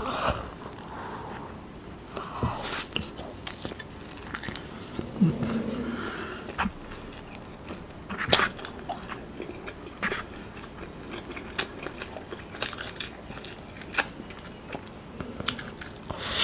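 Close-miked biting and chewing of sauce-coated sweet and sour chicken, with many short, sharp mouth clicks and smacks scattered throughout.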